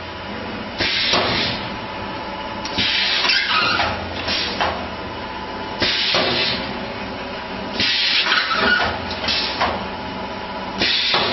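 Paper disc forming machine running, with a loud hiss every two to three seconds as it cycles, over a steady hum.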